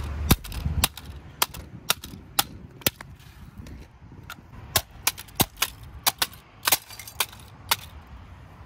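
A wooden-handled iron club hammer smashing broken plastic toys on a concrete sidewalk: about sixteen sharp cracking blows at irregular intervals, one or two a second, with a short pause around the middle.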